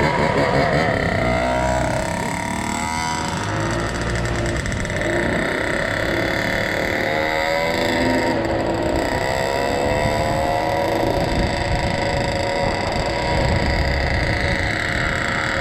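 Small two-stroke dirt bike engine running and revving, its pitch rising and falling.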